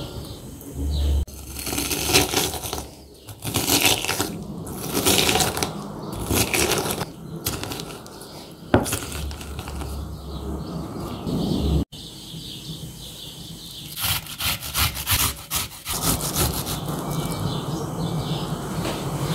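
A wooden masher pounds and squashes pomegranate seeds against the bottom of a glass bowl in irregular strokes. About twelve seconds in, after a cut, an onion is rubbed up and down a small metal hand grater in quick, regular scraping strokes.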